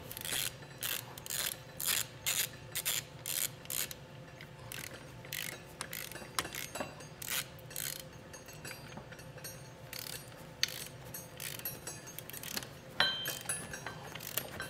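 Ratchet head of a digital torque wrench clicking as it turns hex-bit bolts down on a steel bracket. The clicks come about two a second for the first few seconds, then more sparsely.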